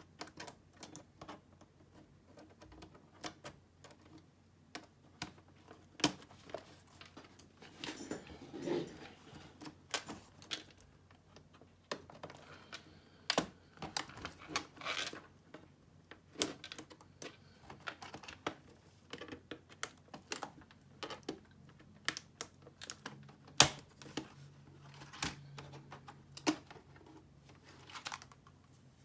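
Irregular plastic clicks and taps as an Asus A54 laptop keyboard is pried out of its case, its retaining clips pushed in and the keys rattling as it is handled. One sharp click near the end is the loudest.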